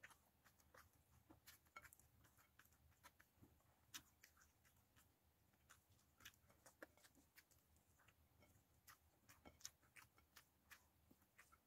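Very faint eating sounds: scattered small irregular clicks from chewing and from fingers picking through fried fish and rice.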